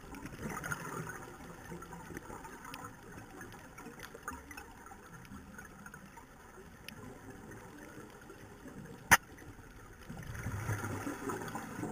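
Underwater sound picked up by a camera in a dive housing: a low, uneven watery wash with a few faint clicks and one sharp loud click about nine seconds in. About ten seconds in, a louder burst of gurgling, bubbling noise begins, typical of a scuba diver's exhaled regulator bubbles.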